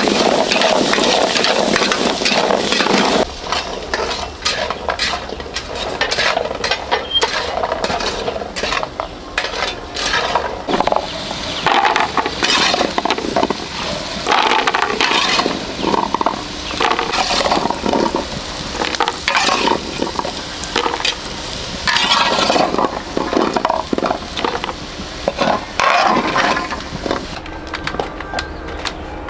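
Food being stirred in a hot pan: a dense sizzle for the first few seconds, then repeated irregular scraping strokes of a utensil against the pan.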